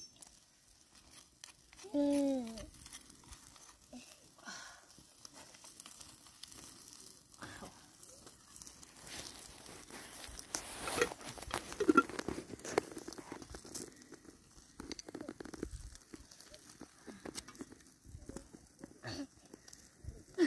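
Intermittent rustling, crinkling and light knocks of things being handled, busiest about halfway through, with a short falling pitched call about two seconds in.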